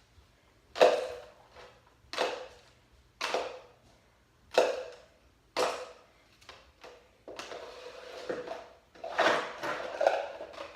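A series of five sharp knocks about a second apart, each ringing briefly, followed by a few seconds of irregular clattering and handling noise.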